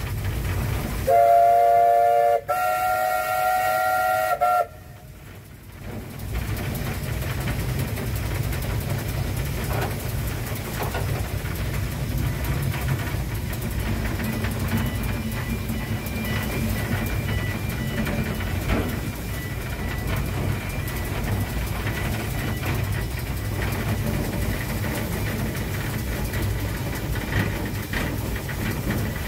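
A Beyer-Garratt steam locomotive's whistle, heard close from the footplate, sounds two blasts about a second in, the second longer and slightly higher. After that comes the steady low rumble of the locomotive and train running.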